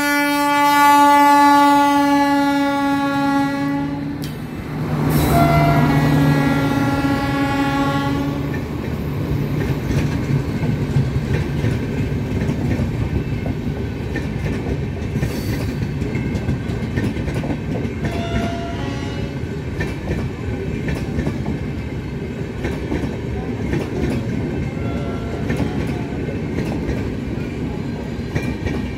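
Electric locomotive horn sounding in two long blasts, one of about four seconds and another of about three seconds just after it, as the train passes at speed. Then the steady rumble and clatter of LHB passenger coaches' wheels running over the rails.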